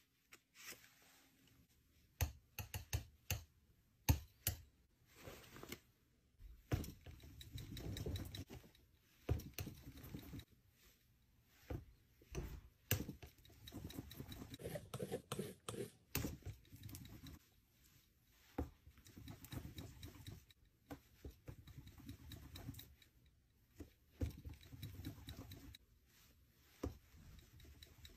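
Palette knife working thick paint on a palette, quiet: soft scraping and smearing strokes broken by frequent light taps and clicks of the blade on the surface.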